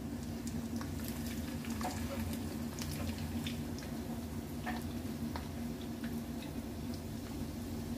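Steady low kitchen hum, with scattered light clicks and crackles as bamboo chopsticks work pieces of chicken through a bowl of wet breading.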